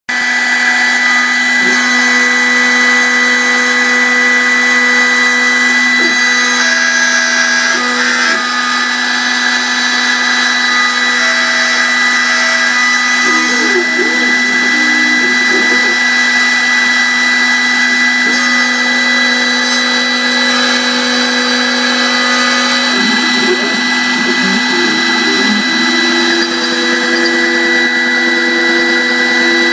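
CNC milling machine cutting aluminium: a loud, steady spindle whine made of several held tones, with brief wavering shifts in pitch around the middle and again later.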